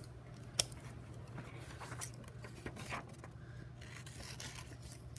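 Scissors cutting through a sheet of black paper in quiet, scattered snips and paper rustles, with one sharp click about half a second in.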